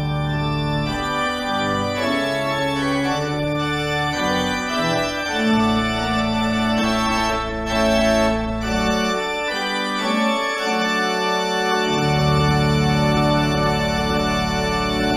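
Church organ playing the postlude after the benediction: full, sustained chords changing every second or so over low pedal notes. The bass drops out for about two seconds near the ten-second mark, then comes back.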